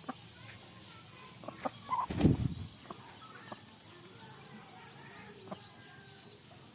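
Aseel chickens clucking softly, with a few short clicks and a brief louder thump about two seconds in.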